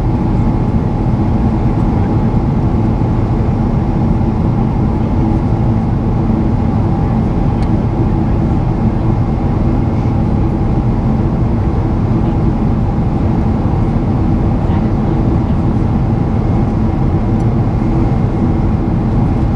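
General Electric GE90 turbofan on a Boeing 777-300ER, heard inside the cabin by the wing: a loud, steady engine drone over a rush of air, with a few faint steady tones and no change in pitch or level.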